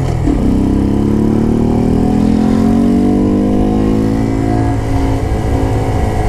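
Honda Grom's 125 cc single-cylinder engine pulling under acceleration: the revs dip briefly at the start, then climb steadily for about three seconds and hold, over a constant low rumble.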